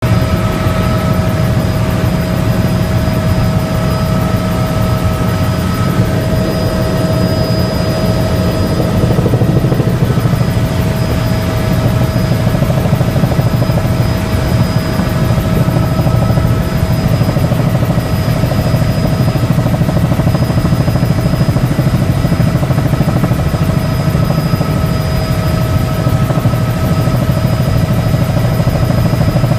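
Helicopter in flight, heard from aboard: a loud, steady drone of rotor and engine with a few thin whining tones held over it, unchanging throughout.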